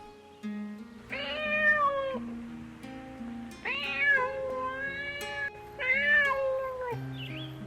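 A cat meowing three times, the middle meow the longest, over soft background music.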